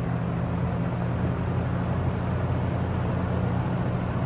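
Vintage metal box fan running steadily on medium speed: a low hum with several steady tones under an even rush of moving air. A window air conditioner runs along with it.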